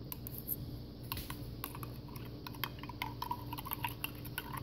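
A spoon stirring powder into water in a glass mug, clinking against the glass in quick, irregular little taps.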